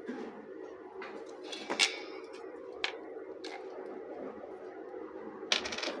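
Scattered clicks and knocks of an opened plastic hair dryer housing being handled, the loudest about two seconds in and a quick run of clicks near the end, over a steady faint hum.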